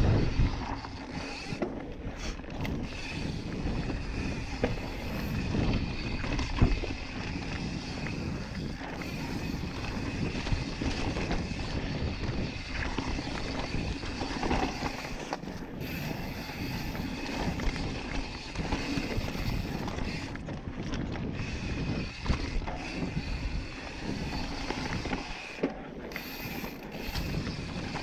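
Yeti SB5 full-suspension mountain bike rolling fast down a dirt singletrack: tyres on dirt and the bike rattling over bumps with frequent small knocks, under a steady rush of wind on the microphone.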